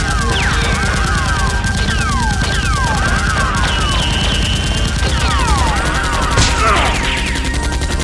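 Continuous rapid automatic-gunfire sound effects, dubbed over a toy-blaster battle. Many short falling whistles run through it, like rounds whizzing past or ricocheting.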